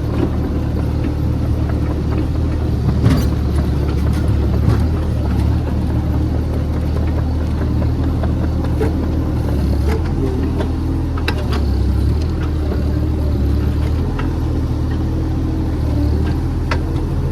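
JCB JS30 Plus mini excavator's diesel engine running under load, its pitch swelling and easing as the hydraulics work, with scattered knocks of the bucket against stone as it digs around a tightly held tree root.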